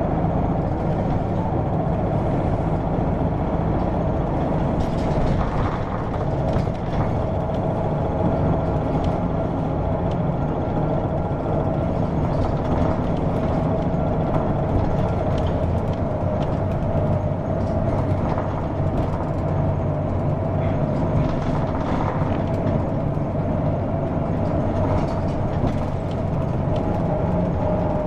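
Hino PDG-KV234N2 city bus running along the road, its diesel engine droning steadily, with a few faint knocks and rattles.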